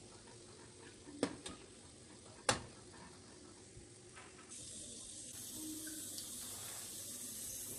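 Boondi frying in oil in a steel kadai, a faint steady sizzle, with two sharp taps of the metal slotted spoon against the pan a second or so apart. About halfway through the sizzle grows louder and brighter.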